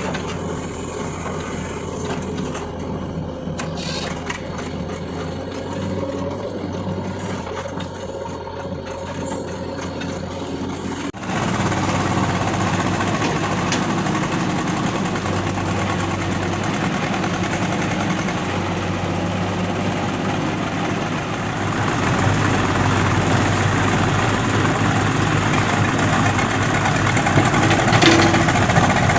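JCB 3DX backhoe loader's diesel engine running continuously. It gets abruptly louder about a third of the way in and louder again about two-thirds through.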